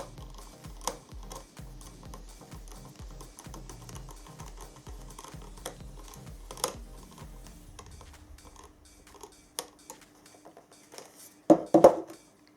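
Background electronic music with a steady beat that fades out about two-thirds of the way through, over scattered small clicks and taps from handling small plastic parts and screws. Near the end there is a short, loud cluster of clattering knocks.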